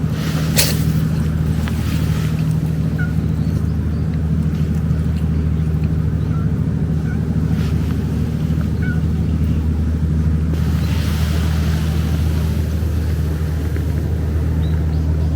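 A steady low rumble throughout, with a cat sneezing once, short and sharp, about half a second in.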